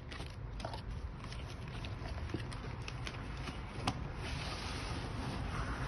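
Hands handling a box and its contents: scattered light taps and clicks, a sharper knock about four seconds in, then rustling.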